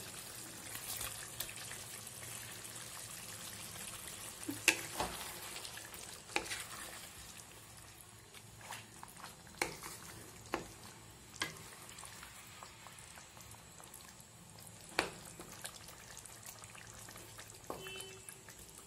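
Thin curry simmering in a wok with a faint steady bubbling hiss, while fried rohu fish pieces are added and stirred in, with about eight short knocks of the fish and spatula against the pan.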